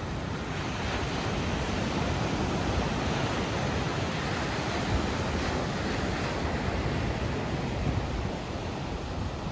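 Ocean surf breaking and washing up a sandy beach: a steady rush of waves that builds a little in the first second or two.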